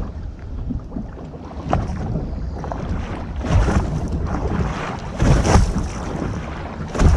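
Waves slapping and sloshing against a bass boat's hull as it rocks in boat wakes, with wind buffeting the microphone. The water comes in surges a little under two seconds apart.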